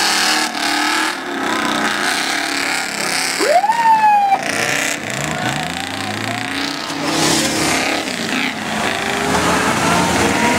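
Off-road truck engines running and revving, over the noise of an outdoor crowd. About three and a half seconds in, a sharp pitched sound rises quickly and then slowly falls away.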